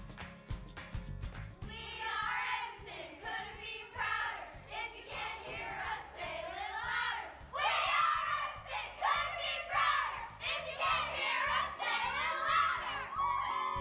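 A group of girls singing a team cheer together, over background music; the cheer starts about two seconds in and stops just before the end.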